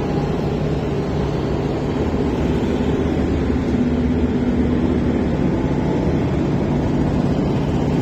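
An engine running steadily with a low, even hum.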